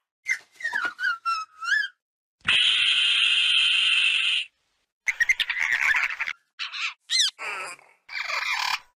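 A run of separate Compsognathus creature sound effects: high chirps and squeaks that glide up and down in pitch, then one steady, harsh call of about two seconds, then more quick chirps and squeals, each cut off sharply with silence between.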